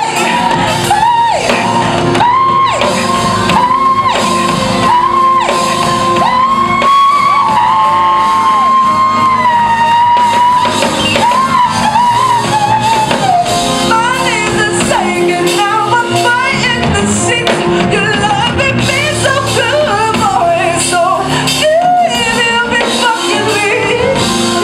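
Live R&B performance: a female singer sings over a band in a large hall, with long held notes in the first half and quick ornamented vocal runs in the second. Shouts and whoops come from the audience.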